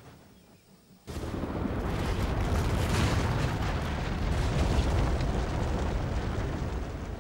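A sudden blast about a second in, then a long rushing rumble that slowly dies away as a charge of snow bursts from a model rock face and debris is thrown out.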